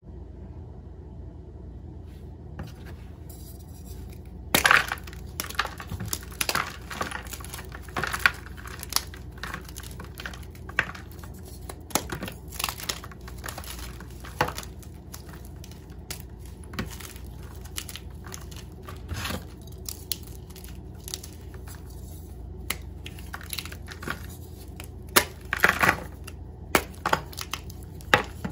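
Blocks of Ader gym chalk crushed by hand: irregular sharp cracks and crunches as the blocks snap and crumble. The first loud cracks come about four and a half seconds in, after a quiet start, with another loud cluster near the end.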